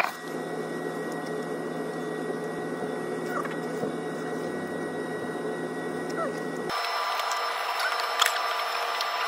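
Steady background noise of a convenience store, with a faint steady hum running through it. The sound changes abruptly about two-thirds of the way through, turning thinner and higher.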